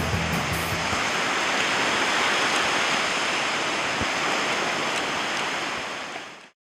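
Sea surf washing onto a sandy beach: a steady rushing of small waves, with the tail of background music stopping about a second in. The surf fades out near the end.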